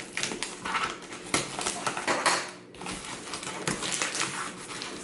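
Plastic puzzle boxes and packaging being handled: a busy run of irregular light clicks, taps and rustling.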